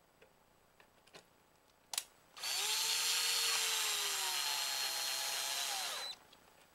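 LG cordless drill-driver driving a screw that fastens a touch-switch plate to the wall: the motor runs steadily for about four seconds, dropping in pitch as it stops. A few light clicks and one sharp click come just before it starts.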